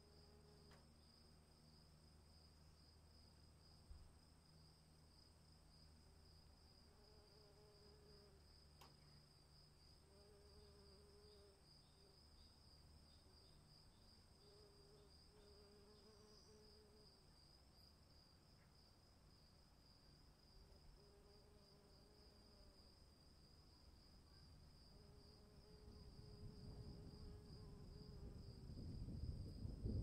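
Faint, steady chirping of crickets, with a lower call repeating every two seconds or so. Near the end a low rumble of distant thunder swells up as the storm approaches.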